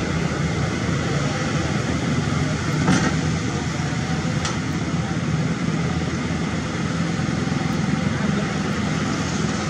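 Diesel engine of a long-reach hydraulic excavator running steadily while it digs, a low even hum, with a light knock about three seconds in.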